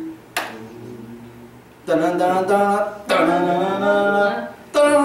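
A voice singing or chanting long held notes that step in pitch, starting about two seconds in, with a sharp click shortly before.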